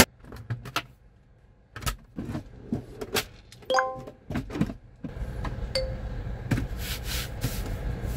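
Clicks and knocks of a built-in cabinet panel being pulled out on its slides and handled, with a short metallic clink a little before the middle. A steady low rumble sits underneath in the second half.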